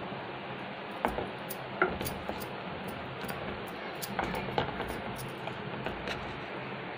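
Wooden spatula stirring thick cake batter in a steel pot, with a few light clicks where it knocks against the pot.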